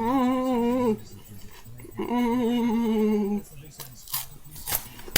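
A woman humming "mmm" twice in enjoyment of a snack, each hum held on a nearly level note, the second one longer. A few sharp clicks follow near the end.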